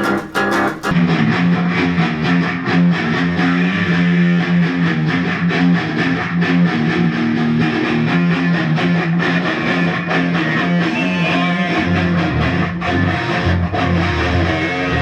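Guitar music: a guitar part of sustained chords starts about a second in, and a lower bass line joins near the end.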